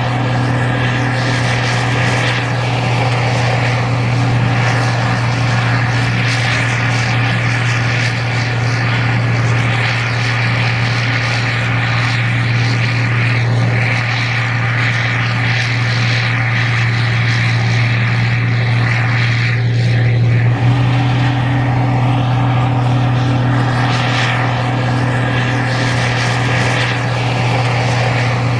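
Gleaner R52 combine harvesting corn, its diesel engine and machinery running with a steady, unbroken low drone.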